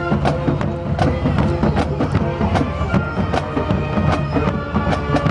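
Marching band playing: drums striking a steady beat under held horn notes.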